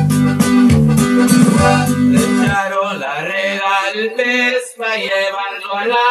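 Norteño band music, with accordion over a plucked bajo sexto and bass line. About two and a half seconds in, the bass and guitar drop out suddenly, leaving a thin, filtered-sounding accordion line, the sign of a vocal-isolation filter stripping out the instrumental backing.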